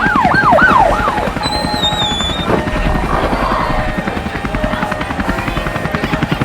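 Emergency siren yelping in fast rising-and-falling sweeps that fade out after about a second, over the steady rapid chop of a helicopter's rotor blades. A brief high warbling tone sounds about two seconds in.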